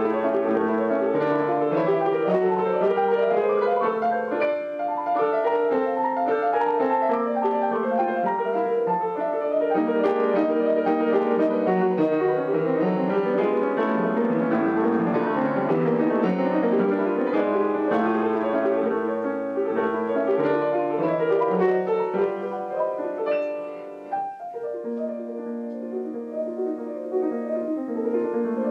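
Piano playing, with many notes sounding together and overlapping. It dips briefly about 24 seconds in, then carries on a little more quietly.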